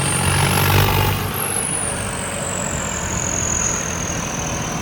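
Tractor diesel engine revving up briefly about a second in, then settling back. A high whine climbs with the rev and slowly falls away afterwards.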